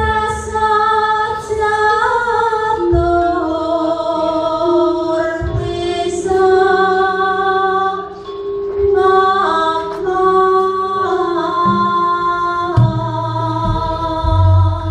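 A female singer (sinden) singing long, slowly gliding held notes over a Javanese gamelan. The saron metallophone and bonang kettle gongs are being struck, and deep low strokes come in near the end.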